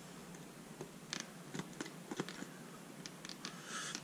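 Faint, scattered small clicks of pliers working the metal prongs of a convertible boot clip, bending them down against the plastic rail. A brief rustle near the end.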